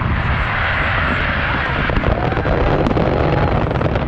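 Fireworks display: many bursts and crackles run together into a continuous rumble and hiss, with no single sharp bang standing out.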